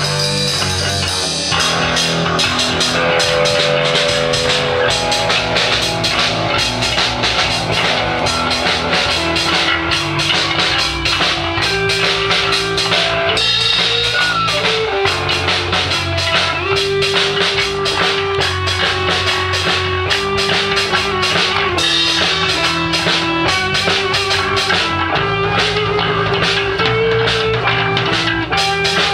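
Rock band playing live: drum kit, electric guitar and bass guitar together at full volume, with long held guitar notes coming in about a third of the way through.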